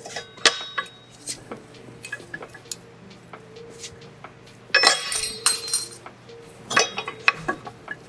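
Light metallic clinks and taps as a motorcycle rear wheel and its loose parts are worked into place on the swingarm. A louder metal rattle comes about five seconds in and a shorter one near seven seconds.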